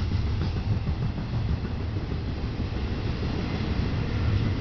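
Double-stack intermodal container train's well cars rolling past at speed: a steady, low rumble of steel wheels on the rails.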